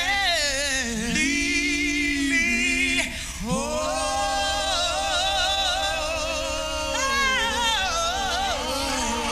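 Gospel soul singing: a voice holding long, sliding notes with heavy vibrato, wordless melisma over a soft sustained band backing. It breaks briefly about three seconds in before rising into a new held note.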